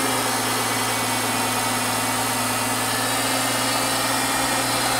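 BMW 535i GT's N55 3.0-litre turbocharged straight-six idling steadily a few seconds after starting. Its revs ease down a little in the first second or two, then hold even.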